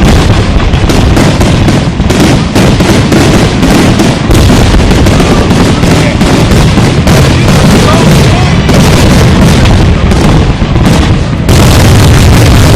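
Aerial fireworks bursting in a rapid, nearly continuous barrage of overlapping booms and crackles, very loud throughout.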